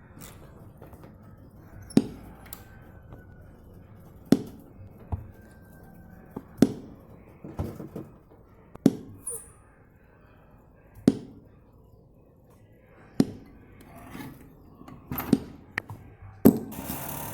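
Sharp knocks struck one at a time, roughly every two seconds, some followed by a few lighter taps. A steady hiss starts near the end.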